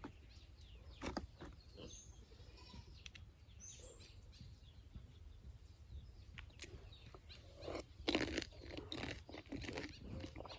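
Faint crunching and chewing of crisp pani puri shells being eaten, in scattered bites that come thicker near the end.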